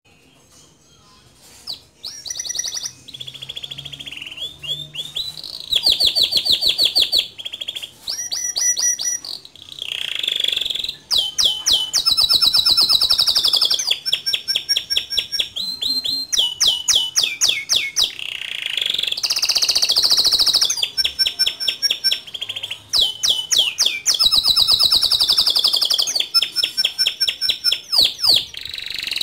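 Male domestic canary singing a long, nearly continuous song of rapid trills of repeated notes and sweeping notes, starting about two seconds in.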